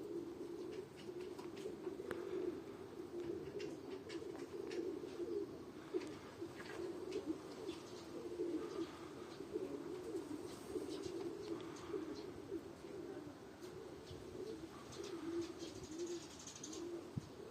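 Several domestic pigeons cooing over one another in an unbroken, pulsing murmur, with scattered light clicks and taps.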